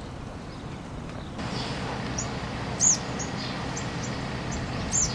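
A small bird chirping: a run of short, high chirps, two of them much louder than the rest, over steady outdoor background noise that grows louder about a second and a half in.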